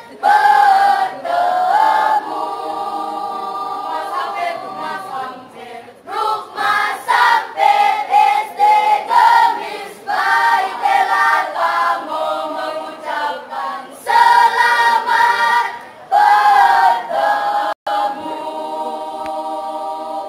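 Children's choir singing masamper, the Sangihe islands' traditional unaccompanied part-singing, in sustained phrases with short breaks between them.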